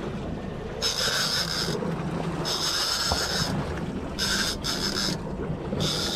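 A fishing reel whirring in about five short spurts as a hooked fish is fought, over the steady low hum of the boat's outboard engines idling in neutral.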